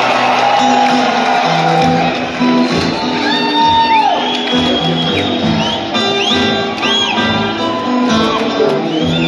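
Live acoustic blues band playing: acoustic guitars over upright bass and keyboards, heard from the arena seats. Audience whoops and whistles rise and fall over the music a few seconds in.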